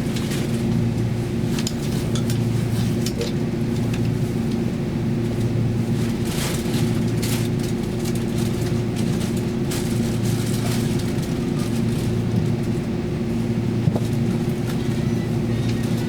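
Taiwan Railway Tze-Chiang express train running, heard from inside the carriage: a steady low hum of the train in motion, with scattered brief clicks and rattles.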